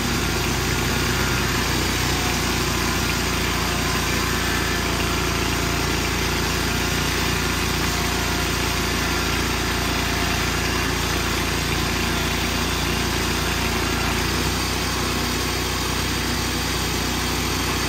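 Engine of a portable sawing machine running steadily while cants are fed through it and cut into boards.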